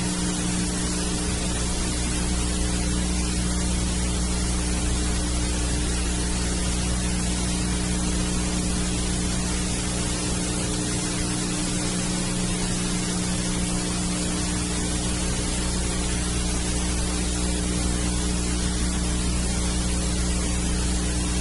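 Steady hiss with a low electrical hum underneath: the noise floor of the recording, with no programme sound over it.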